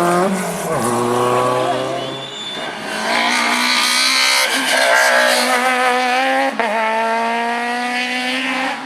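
A rally car's engine revving hard under acceleration, its pitch climbing and dropping at a gear change about a second in and again near the end.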